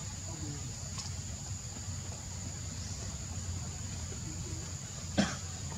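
Outdoor ambience: a steady high insect drone over a low rumble, with one sharp knock about five seconds in.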